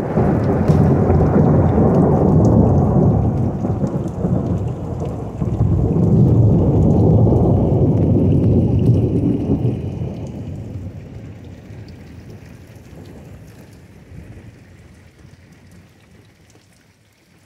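A long roll of thunder rumbling, swelling twice over the first nine seconds and then slowly dying away.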